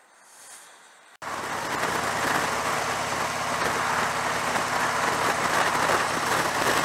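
Cruiser motorcycle riding along a road: the engine runs steadily under loud wind rush, cutting in abruptly about a second in after a faint quiet stretch.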